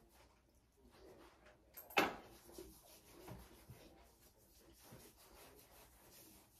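A single sharp knock about two seconds in, followed by a few fainter knocks.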